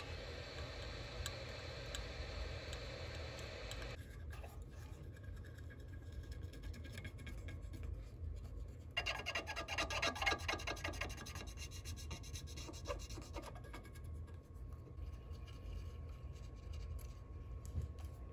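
Scratching and rubbing as old capacitor glue is scrubbed off a circuit board with a cotton swab, densest and loudest for a few seconds near the middle. At the start a steady blowing hiss, like a heat gun, cuts off about four seconds in.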